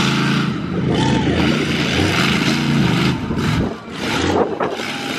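Monster truck engine revving hard as the truck accelerates and launches over a row of scrap cars, the engine note dipping briefly a little past the middle before picking up again.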